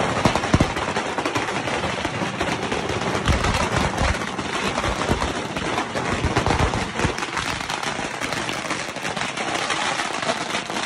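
Strings of firecrackers going off in a continuous, rapid crackle of dense pops, with a few louder bangs mixed in.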